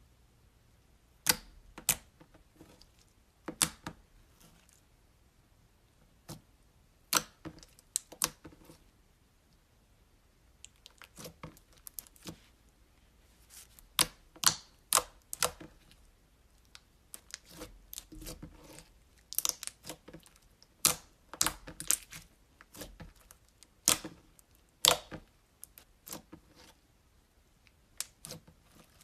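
Slime being squeezed, poked and stretched by hand, giving sharp irregular clicks and pops, some single and some in quick clusters.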